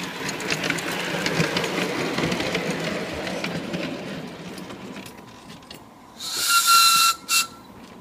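Miniature railway train running along ground-level track, its wheels clattering and ticking over the rail joints. About six seconds in, the little steam locomotive's whistle blows: one breathy blast of nearly a second, then a short second toot.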